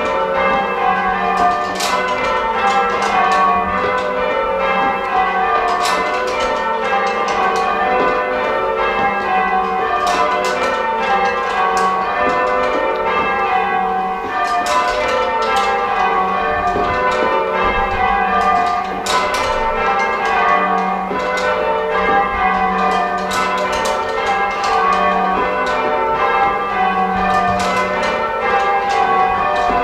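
Church tower bells being rung in changes: full-circle change ringing, a continuous run of overlapping strokes whose pitches step through the ring in shifting order, heard from the ringing chamber beneath the bells.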